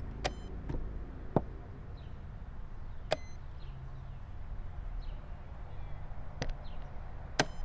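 Blitz chess being played: chess pieces set down on the board and a digital chess clock's buttons pressed in turn, heard as sharp separate clicks and taps at irregular gaps of one to four seconds.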